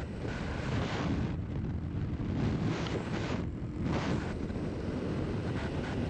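Wind buffeting the microphone of a quad bike moving at road speed, its hiss rising and falling in gusts over the low rumble of the quad's engine.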